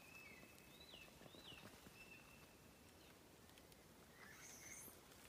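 Near silence outdoors, with a few faint, thin, high whistled calls: long steady notes and a couple of quick falling chirps about a second in.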